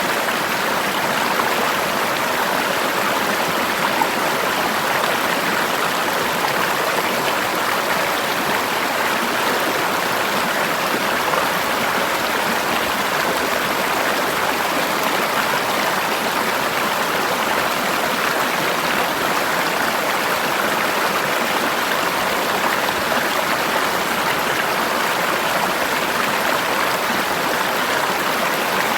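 Forest river water flowing and rushing steadily over rocks, an even hiss with no breaks.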